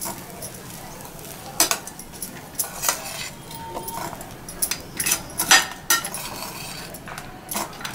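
Spoon scraping and clinking against a metal kadai as cooked rice with peanuts and cashews is stirred and tossed, in irregular strokes with a few sharper clinks.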